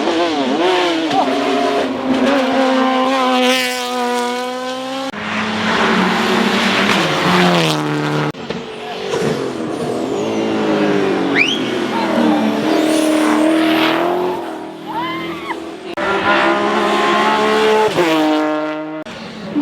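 Race cars' engines revving hard on a hill climb, rising in pitch and breaking off sharply several times as they shift or pass. Short high-pitched squeals come near the middle.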